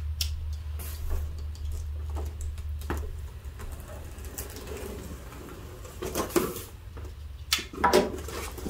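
Box cutter slicing the packing tape on a cardboard shipping box, with small clicks and scrapes, then the cardboard flaps pulled open with louder scraping and rustling near the end.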